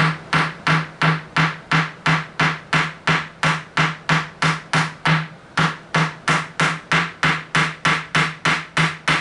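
A small hammer striking in a steady rhythm, about three blows a second, fastening a green sheet down onto a wooden end table's top.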